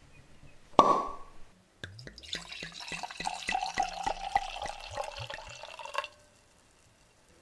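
Liquid poured and dripping into a glass as the production company's sound logo, with a single ringing clink about a second in. The pouring runs with quick drip-like clicks and cuts off suddenly about six seconds in.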